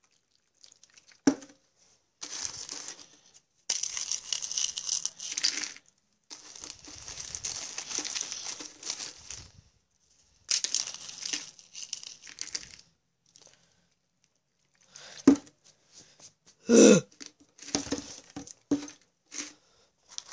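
Crinkling and crumpling, as of a bag or wrapper being handled, in three bursts of a few seconds each. Later come a few short knocks and one brief loud sound about seventeen seconds in.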